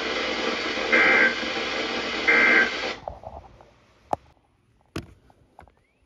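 Weather radio receiver putting out loud static hiss, broken by two short warbling data bursts about a second apart, the SAME end-of-message tones that close an emergency alert broadcast. About three seconds in the radio mutes and the static stops abruptly, leaving a few faint clicks.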